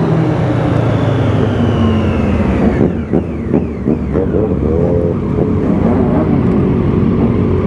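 Motorcycle engines heard from a rider's own bike: the engine winds down in pitch as the bike slows, with wind rushing on the microphone. About three seconds in the wind drops, and engines idle and briefly rev among a pack of motorcycles stopped in traffic.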